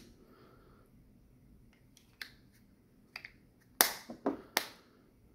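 Sharp plastic clicks from a Peugeot/Citroën flip key fob handled with the fingers at its folding blade and pivot. A couple of faint ticks come first, then three sharper clicks in quick succession near the end.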